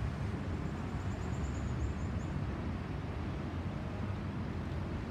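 Distant Boeing 737-800 jet airliner's CFM56 engines: a steady low roar from the aircraft climbing overhead at a distance.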